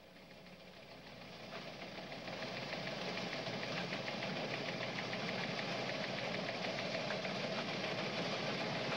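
Crowd din of a commodities exchange trading floor, many traders' voices at once in the open-outcry pits, fading in over the first two or three seconds and then holding steady.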